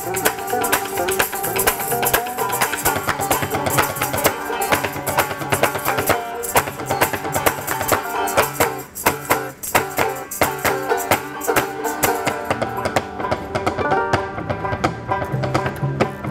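Instrumental passage of an alt-country song: two banjos picking and an upright double bass under a steady beat of hand percussion.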